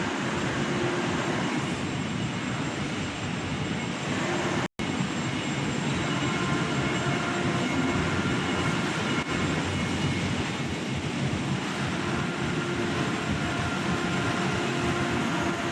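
Steady din of factory machinery on an air conditioner production line, with a few faint steady tones over the noise. It cuts out for an instant about five seconds in and resumes unchanged.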